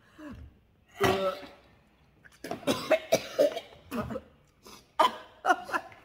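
A woman coughing and gagging in short fits: one about a second in, then a run of several in quick succession and more near the end. It is the gag reflex from swallowing banana chased with Sprite, close to throwing up.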